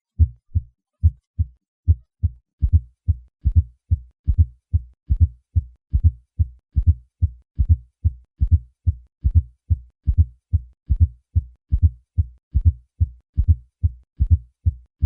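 Heart sounds with a fourth heart sound (S4 atrial gallop): a low-pitched extra beat in late diastole just before each lub-dub, giving a quick, steady rhythm of short low thumps. An S4 is the sign of a stiff, poorly compliant ventricle that needs a forceful atrial contraction to fill.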